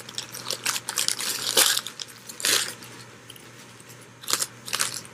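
Bag of potato chips crinkling and chips crunching: a few short, separate crackles about a second apart.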